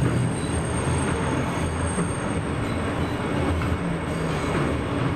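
New York City subway N train running on elevated track, heard from inside the front car: a steady rumble of wheels and running gear, with a thin, high wheel squeal over the first two seconds or so.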